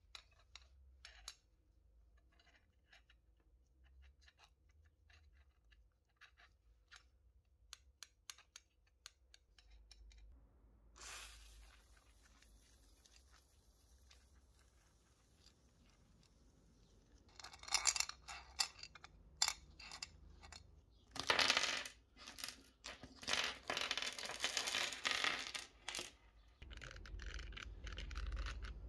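Small steel bolts, nuts and washers clink lightly as they are handled, about a dozen sharp ticks. In the second half come louder bursts of scraping and rubbing, in short, uneven spells.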